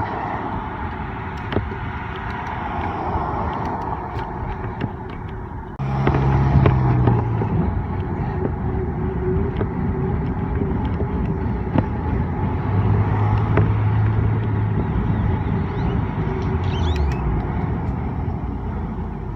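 Street traffic heard from a moving bicycle: a steady rush of road noise that gets louder about six seconds in, when a low motor-vehicle engine hum comes in and shifts in pitch a few times.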